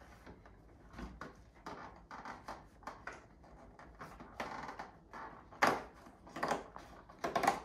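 Cardboard door of a toy advent calendar being pressed and torn open by hand and a small toy taken out: a run of rustles, scrapes and taps, with a few louder sharp crackles near the end.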